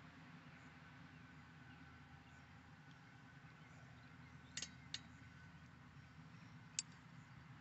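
Near silence: faint steady background, with two light clicks a little past halfway and a third near the end.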